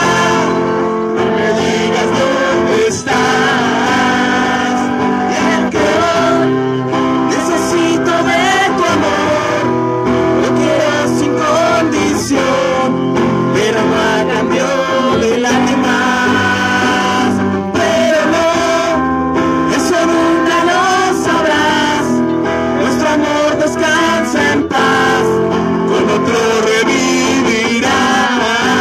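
Live rock band: a man singing into a microphone over electric guitars.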